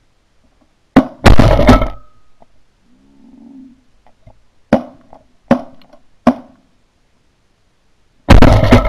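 Shotgun fire from several hunters shooting at pigeons. There is a single shot about a second in, then a loud, quick run of shots right after it. Three more shots follow, each under a second apart, in the middle, and another loud, close burst of shots comes near the end.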